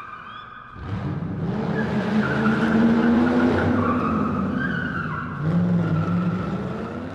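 Car sound effect: tires squealing with an engine revving. It swells about a second in and eases off toward the end.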